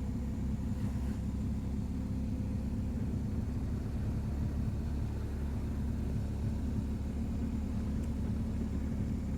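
BMW R 1250 GS boxer-twin motorcycle engine running steadily while riding at an even pace, heard as a steady low hum together with road noise.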